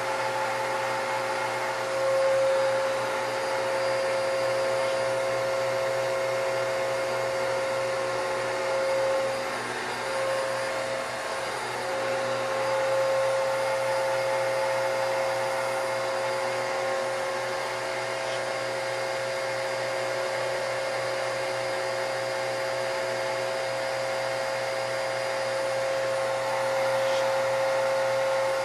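Vacuum cleaner running steadily with a high motor whine; the whine wavers and briefly drops about ten seconds in before settling again.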